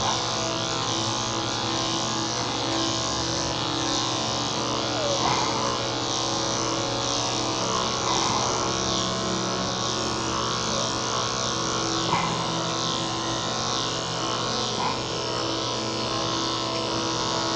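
Electric dog clippers running with a steady buzz as they are drawn through a cocker spaniel's coat.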